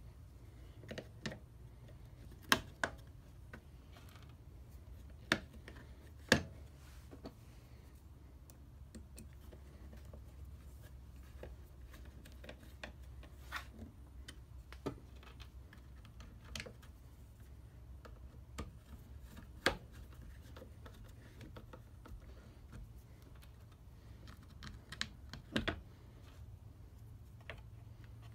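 Plastic housing and parts of a cheap ratcheting bar clamp being handled and fitted back together, with a small screwdriver driving the housing screws: scattered light clicks and knocks with a few sharper taps. A low steady hum runs underneath.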